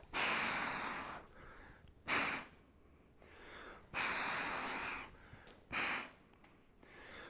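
A man breathing audibly while working a kettlebell through halos around his head, long breaths alternating with short sharp ones every second or two.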